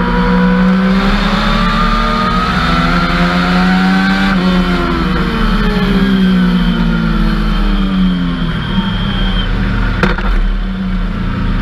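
Legends race car's Yamaha motorcycle-derived four-cylinder engine heard from inside the cockpit, rising in pitch for about four seconds under acceleration, then falling for about four seconds as it slows, and running lower and steadier near the end.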